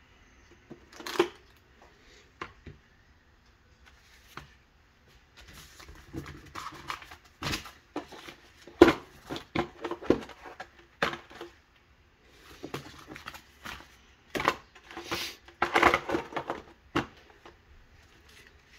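Pistols and hard plastic gun cases being handled: irregular clicks, knocks and rustling. The loudest knocks come about a second in, around the middle, and near the end.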